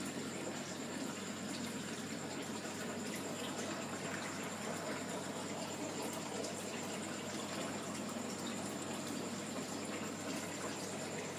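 Steady running water from the aquarium's water circulation, with a low steady hum and a faint high steady tone.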